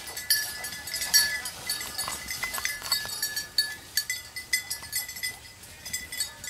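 A hunting dog's collar bell jingling irregularly as the dog moves through brush.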